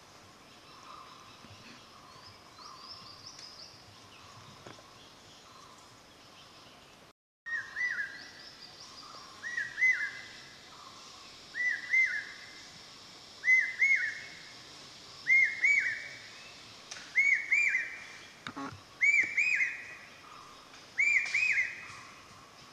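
Forest ambience with faint birdsong. After a brief dropout about seven seconds in, a bird repeats a loud call of two quick arched whistled notes about every two seconds, eight times in all, with a single sharp crack near the end.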